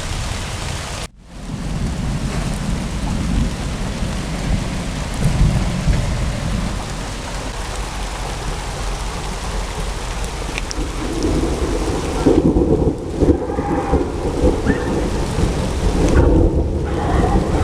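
Heavy thunderstorm: steady rain with deep, rolling thunder rumbling underneath, the rumbling growing stronger in the second half. The sound drops out briefly about a second in.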